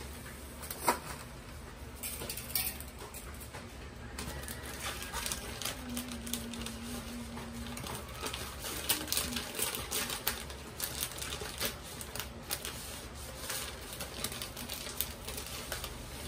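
Water at a rolling boil in an enamel pot, bubbling with dense irregular pops and crackles as dry spaghetti goes in. There is a sharp click about a second in.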